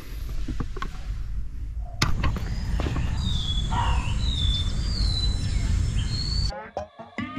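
Outdoor ambience: a steady low rumble, louder from about two seconds in, with birds chirping several times over it. Near the end it cuts to a few short electronic tones.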